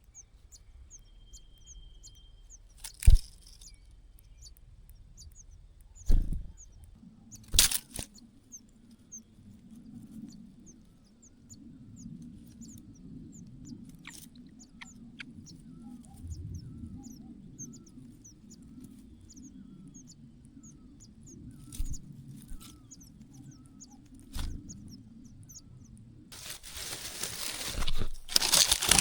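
Nestlings cheeping faintly in short, high, rapid chirps, with a few sharp knocks early on and a loud rustling of handling near the end.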